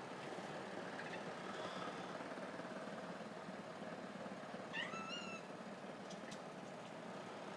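Domestic cat giving one short, sharply rising meow-like call about five seconds in, with a few faint clicks around it.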